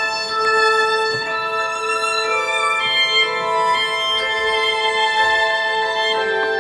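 Slow instrumental music: a melody of long held notes moving from one pitch to the next.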